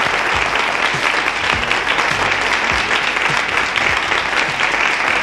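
Studio audience applause, a dense steady clapping, with a low thump about twice a second underneath it.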